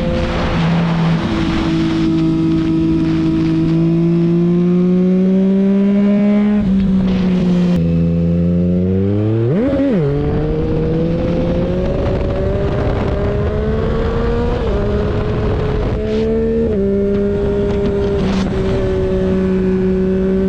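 Yamaha MT-09's three-cylinder engine under way at fairly steady revs, the exhaust note's pitch creeping upward with small steps at gear changes. About ten seconds in the revs drop sharply and spring straight back up in a quick blip.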